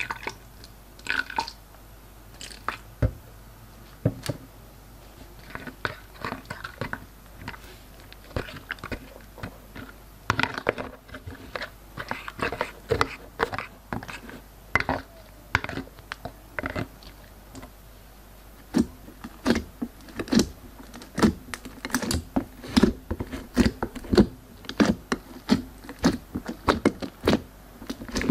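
Glossy slime being squished and worked by hand, giving irregular wet sticky clicks and small popping sounds, sparse at first and coming in quick clusters over the second half.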